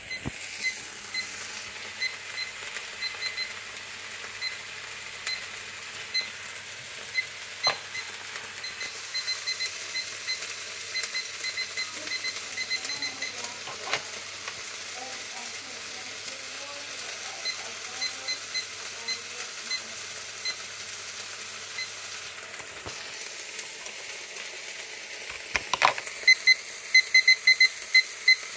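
ADE BBQ 1600 digital roasting thermometer giving short, irregular beeps as the induction cooktop sets off ghost touches on its touchscreen, over the steady sizzle of food frying in a pan. Near the end the thermometer breaks into a fast, loud, regular run of beeps.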